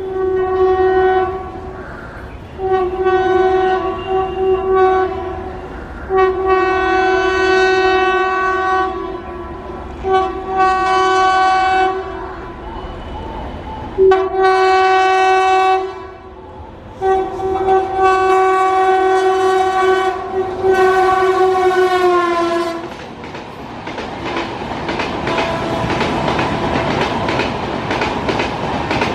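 WAP-7 electric locomotive's horn sounding a long run of repeated blasts, about six of them; the last and longest one drops in pitch as it ends. The horn then stops, and the LHB coaches' wheels rumble and clatter rhythmically over the rail joints at speed.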